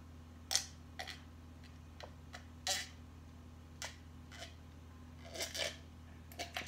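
A person drinking from a mug, with about ten short swallowing and sipping sounds at irregular intervals.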